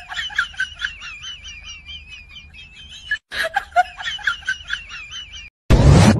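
High-pitched, sped-up cackling sound effect: a rapid run of wavering pulses, played twice with a brief cut between. Near the end comes a loud burst of rushing noise.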